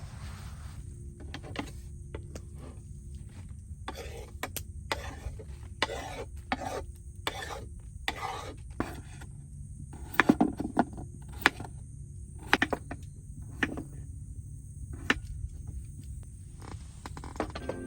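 Irregular clinks and knocks of cooking utensils and cookware being handled, over a steady low rumble. The loudest cluster of clinks comes just past the middle.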